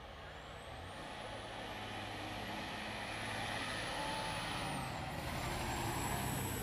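Semi-truck's diesel engine approaching and passing close, growing steadily louder, with a high whine over it that drops in pitch about five seconds in.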